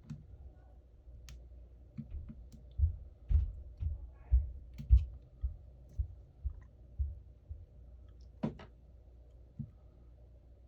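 Small clicks and dull taps from a phone and repair tools being handled on a work surface. There is a run of irregular knocks about two a second through the middle and one sharper click near the end.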